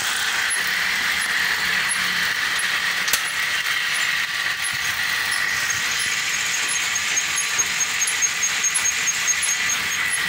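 Motorised pirn-winding machine for handloom weaving running at full speed, with a steady high whine and a light regular ticking. A single sharp click comes about three seconds in, and a faster ticking, about four a second, joins about six seconds in.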